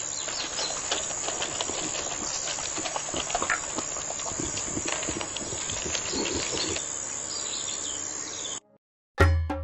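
Noisy background ambience with a steady hiss and many small, irregular clicks and knocks. It cuts off abruptly about a second before the end.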